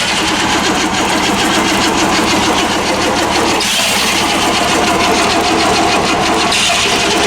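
Chevrolet 350 V8 turning over and sputtering without running cleanly, a fast uneven chugging, with a hiss about halfway through and again near the end. The engine is starved of spark: weak spark from a corroded coil connection is the suspected cause.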